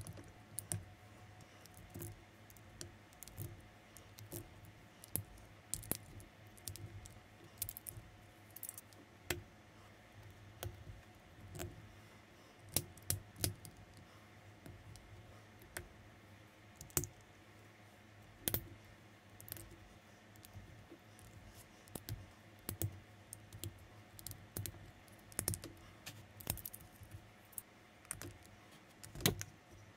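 Plastic building bricks being handled and pressed together: irregular sharp clicks and taps, over a faint low steady hum.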